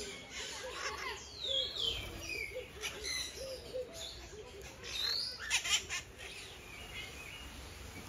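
Several birds calling together: a run of short, low repeated chirps, a few sweeping whistled calls, and a burst of loud, harsh squawks about five and a half seconds in.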